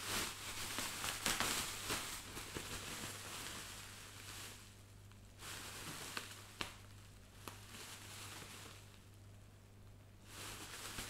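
Bubble wrap and packing plastic rustling and crinkling as a taped parcel is pulled open by hand. The rustling comes and goes, with a few sharp clicks, over a faint steady hum.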